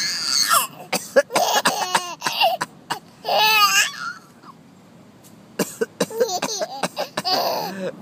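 A baby laughing in high-pitched giggling bursts, mixed with short coughs. There is a lull of about a second and a half just past the middle, then the laughing and coughing start again.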